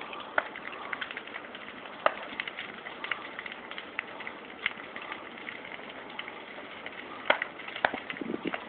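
A burning trailer fire crackling and popping: a steady hiss with sharp pops scattered throughout, several of the loudest coming in quick succession near the end.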